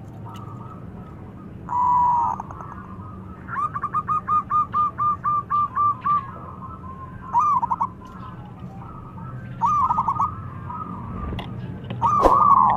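Zebra dove (perkutut) cooing: a single coo about two seconds in, then a fast run of about a dozen staccato notes at roughly four a second, followed by shorter clusters of coos near the end.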